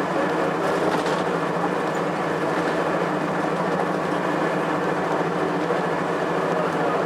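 Cummins ISC inline-six diesel of a 2002 Blue Bird CS transit bus running steadily, heard from inside the bus as a constant low drone under an even rumble of road noise.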